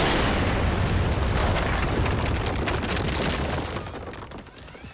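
Cartoon meteor-impact sound effect: a loud explosion and rumble that holds for a few seconds, then fades out near the end.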